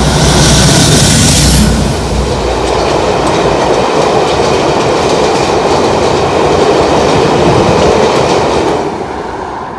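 Class 56 diesel locomotive hauling a freight train past at close range. Its engine is loudest for the first two seconds, then the wagons roll by with steady wheel-on-rail noise that fades near the end.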